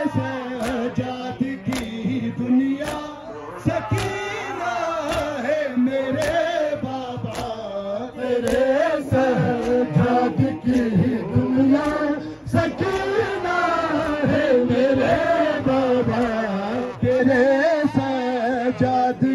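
Male mourners chanting a Muharram noha lament together, a long wavering melody, with sharp chest-beating strikes (matam) about once a second in time with the chant.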